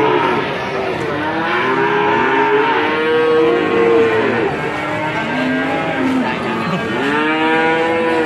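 Cattle mooing: a run of drawn-out calls, each rising then falling in pitch, several overlapping one another.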